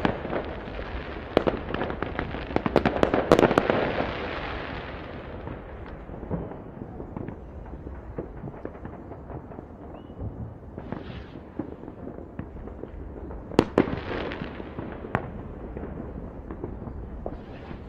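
New Year's fireworks and firecrackers going off across the city as scattered sharp bangs. A dense run of bangs and crackle comes about three seconds in, then it thins out, with one loud bang and a trail of crackle about two-thirds of the way through.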